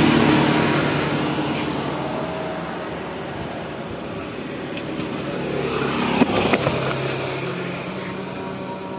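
Motor vehicles passing on the street. One fades away over the first few seconds, and another swells up and passes about six to seven seconds in, with a few sharp knocks as it goes by.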